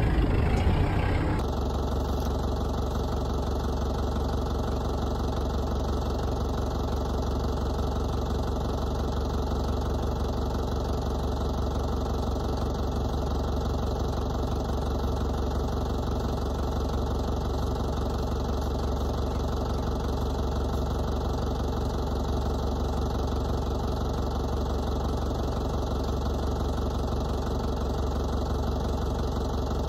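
Kubota compact tractor's diesel engine idling steadily at an even, unchanging speed.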